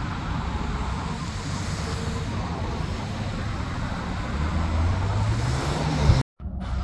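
Road traffic at a roundabout: cars driving past with engine and tyre noise. Near the end a car accelerates away close by, its engine note rising in pitch, before the sound cuts off abruptly; a low, steady engine then runs on.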